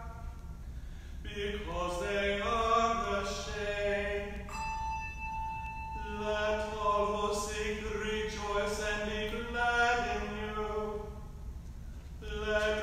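Voices chanting a slow plainsong melody in a reverberant church. The notes step and are held about a second each, with a brief break near the start and another near the end.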